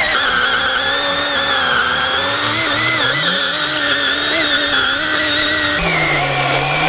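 Greenworks 40V cordless electric chainsaw running, a motor whine with several pitched tones that waver up and down. The sound changes abruptly about six seconds in.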